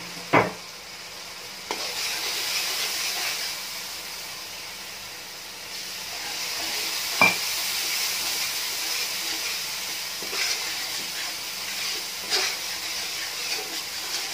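Onion and spice masala sizzling in a metal karahi while a metal fork stirs it, with sharp clinks of the fork on the pan. The loudest clink comes about seven seconds in.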